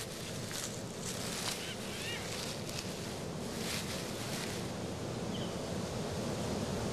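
Steady outdoor background noise, with a few faint, short high chirps scattered through it.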